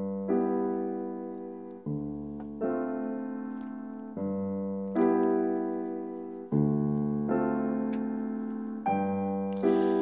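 Background music: slow piano chords, each struck and left to ring and fade, a new chord about every second.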